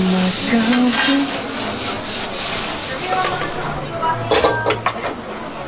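Food sizzling in a hot pan with a high, steady hiss, which eases off after about three and a half seconds. A few sharp clattering knocks of utensils against the pan follow about four seconds in.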